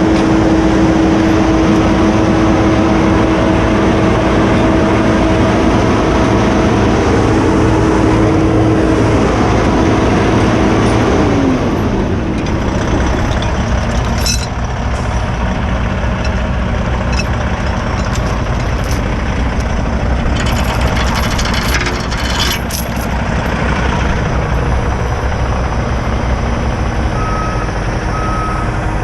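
Heavy truck diesel engine running at raised revs, then dropping back to idle about eleven seconds in, with a few metallic clanks later. Two short beeps sound near the end.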